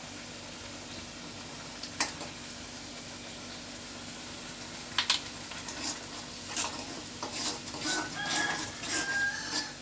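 Onions and ginger-garlic paste frying in an iron kadai, under a steady hiss. About five seconds in a metal spatula clinks against the pan, then scrapes in repeated stirring strokes, with a few short high squeaky tones near the end.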